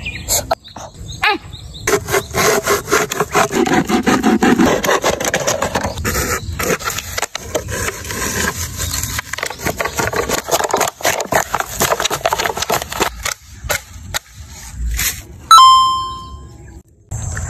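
Crinkling, rubbing and scraping of thin plastic bottles being handled and stepped into, a dense run of crackles. About fifteen seconds in comes a single bright ding that rings and fades, the loudest sound.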